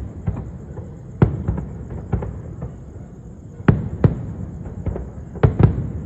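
Fireworks shells bursting overhead: about seven sharp bangs at irregular intervals, several in close pairs, over a steady low rumble.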